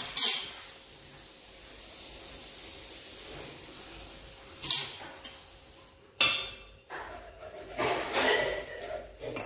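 Steel spoon knocking and scraping against an aluminium cooking pot while stirring stuffed okra curry: a sharp knock at the start, a few more in the middle, then a run of clinks and scrapes near the end, over a faint steady hiss.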